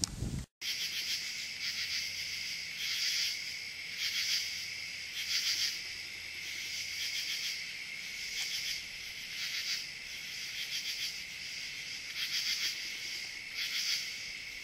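Evening chorus of crickets and katydids: a steady high trill with louder, rapidly pulsing swells about every second or so. It starts just after a short break near the beginning.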